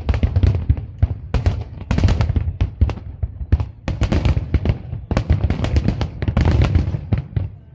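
Aerial fireworks shells bursting overhead: a rapid, irregular run of sharp bangs, coming in dense clusters about every second, over a continuous deep rumble.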